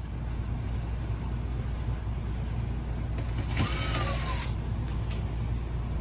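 A cordless electric screwdriver runs with a steady low hum, backing Phillips screws out of a car navigation unit's metal case. About halfway through comes a brief scraping rattle with a short squeak.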